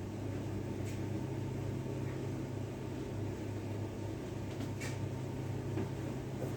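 Steady low electrical hum from a kitchen appliance, with a few faint light clicks.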